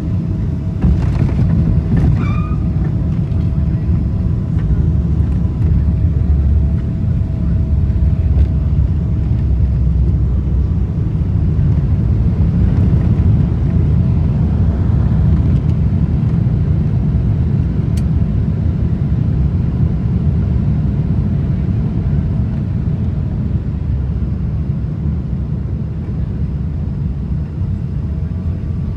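Steady deep rumble inside the cabin of a Boeing 777-300ER as it lands, with a faint steady tone in the first several seconds and a couple of light clicks about two seconds in.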